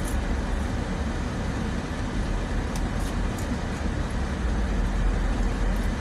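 Steady low rumble of an idling car engine heard from inside the cabin, with a few faint clicks.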